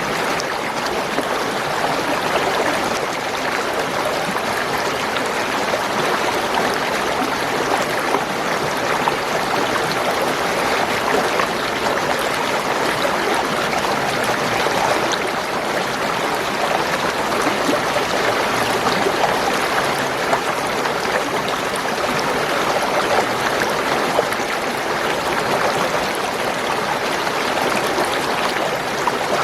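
Spring water gurgling and trickling over stones in a steady, unbroken flow.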